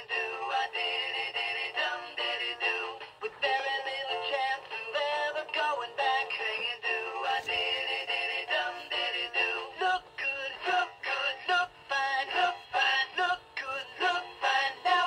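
Travis Trout singing fish toy playing its first song through its built-in speaker: recorded singing over backing music, thin and without bass.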